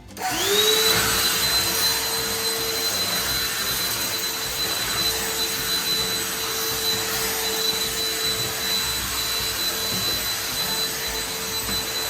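Vacuum cleaner switched on, its motor spinning up in under a second and then running steadily at a constant high whine over a loud rush of air.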